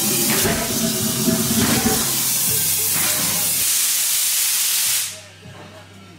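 Loud steady hiss of pressurized gas during a flame bead-seating attempt on a stretched tire. It cuts off suddenly about five seconds in.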